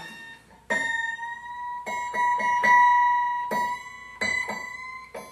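A No. 5 plain-end blade on a Craftsman scroll saw plucked again and again with a finger while the tension knob is tightened. It rings with a clear, guitar-like note that rises slightly in pitch as the tension goes up. The pitch is the check that the blade is tensioned right.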